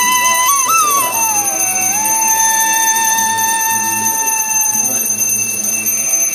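Traditional Indian instrumental music: a single reed or wind melody slides between notes, then holds one long note for about three seconds, over a steady drone.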